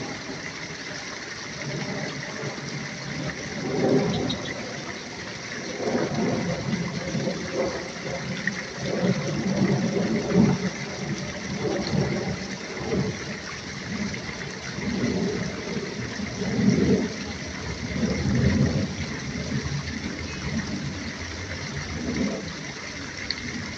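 Steady rushing noise like running water, with low swells rising and falling every second or two.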